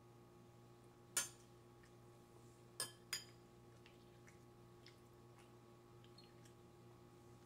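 A metal spoon clinks against a ceramic bowl three times: once about a second in, then twice in quick succession near three seconds.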